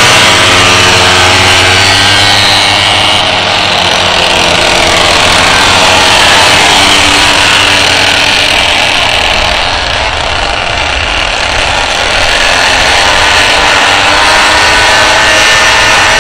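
Several pocket bikes' small engines buzzing at high revs, their pitch rising and falling as the riders open and close the throttle.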